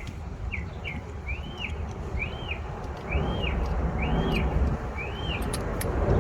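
A bird repeating a short whistled note that rises and falls, about once a second, seven times in a row, over a steady low rumble of distant traffic that swells near the end.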